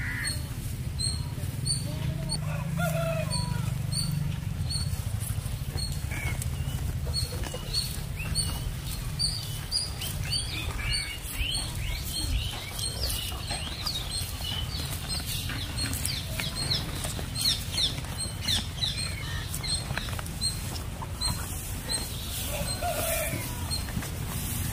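Birds chirping: one repeats a short high note about once a second, while others add many quick falling chirps in the middle and again near the end. Under them runs a low steady rumble, and water buffalo calves munch and rustle dry straw close by, adding scattered crunches.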